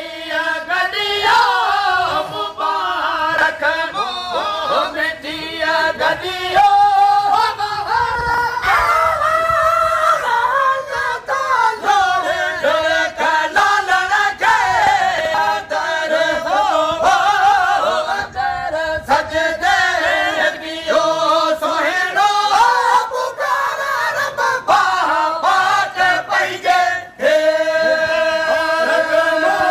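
Sindhi molood, a devotional song, sung by male voices in a group, with winding, ornamented melodic lines. Near the end the voices settle onto one long held note.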